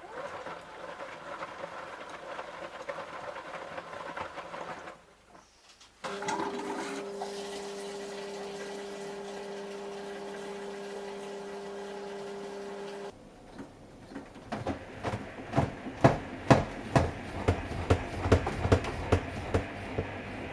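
Samsung Eco Bubble washing machine running a bedding cycle. There is a stretch of water and machine noise, then a steady low two-tone hum for several seconds. The hum gives way to a series of sharp, irregular knocks.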